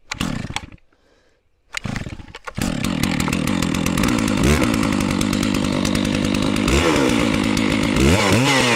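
Stihl MS660 two-stroke chainsaw being pull-started from cold: two pulls on the starter cord, and it catches on the second, then runs steadily at fast idle with the throttle set halfway, as it should after the pop on choke.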